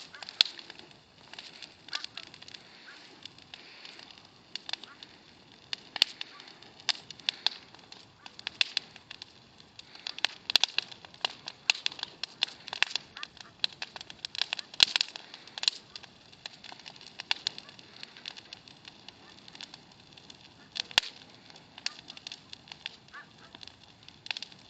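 Small bonfire crackling, with many sharp, irregular pops and snaps over a faint hiss.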